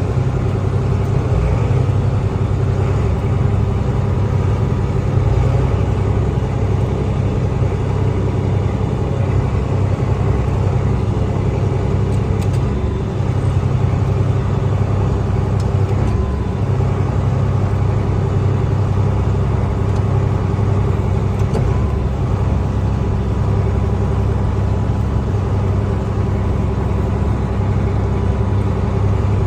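John Deere combine harvester running steadily under load, a constant low engine and machinery drone with no change in speed.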